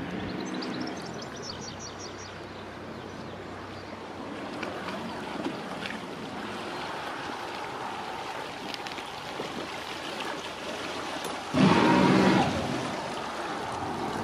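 A passing boat's engine runs over a steady wash of moving water. Near the end there is one loud burst of about a second.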